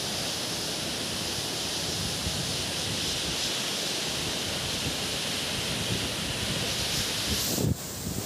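Steady, even rush of a waterfall plunging into its pool, with a brief dip in level near the end.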